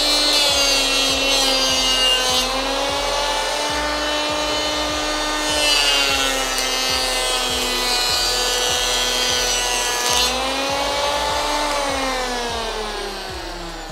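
Bosch GHO 26-82D electric planer, mounted upside down as a bench planer, running with a high whine while a wooden strip is fed across its cutter block, which throws off a hissing cut. The pitch sags under the load of each pass and recovers between passes. Near the end the whine falls steadily as the motor runs down.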